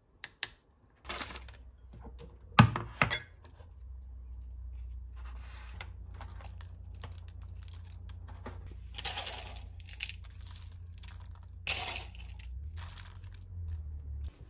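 Crinkling and tearing of snack packets, with dry toppings rattling and dropping into a wooden salad bowl in a series of rustles and clicks. A sharp cluster of knocks about two and a half seconds in is the loudest moment. A steady low hum runs underneath.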